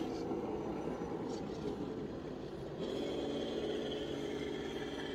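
Electric motor and gearbox of an RC crawler whining steadily as it crawls, the pitch shifting partway through with the throttle.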